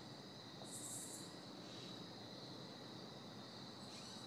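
Insects calling in the woods: a steady high trill, with a short, higher buzz about a second in.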